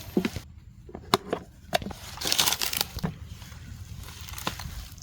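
Dry leaf litter and twigs being moved by hand, with scattered sharp snaps and crackles and a short rustle about two seconds in.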